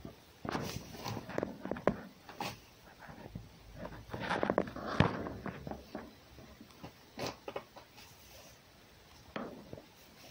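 Straw bedding rustling and crackling in irregular scuffs and clicks as a fox and a cat shift about on it, busiest about four to five seconds in.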